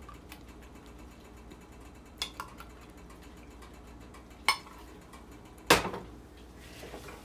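A utensil clinking against a pot about five times at uneven intervals, the loudest about six seconds in, as minced beef for kitfo is worked together with warm butter.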